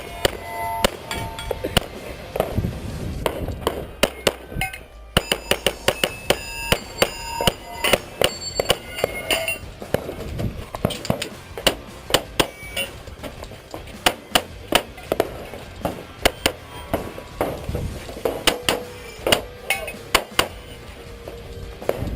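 A long string of pistol shots fired in quick succession, many followed by the short ring of a steel target being hit, each ring at its own pitch. The firing pauses briefly about four seconds in, then runs on.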